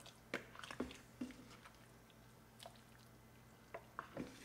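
Ladle stirring through a pot of chunky chicken stew: faint wet squelches of liquid and vegetables, with a few short light knocks of the ladle spread through.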